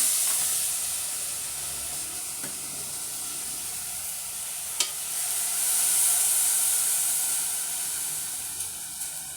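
Chicken gizzards sizzling in a hot pot, a steady high hiss that swells again about halfway through. One sharp knock about five seconds in.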